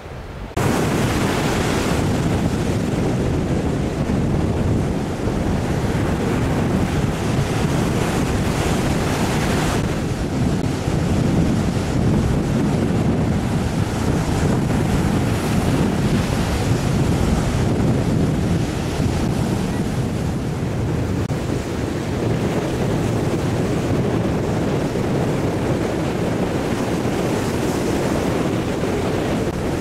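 Baltic Sea surf breaking and washing up a sandy beach, a steady rushing wash that starts suddenly about half a second in, with wind buffeting the microphone.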